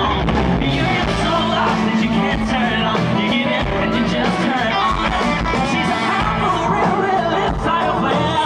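Live country band playing loudly with a male lead singer.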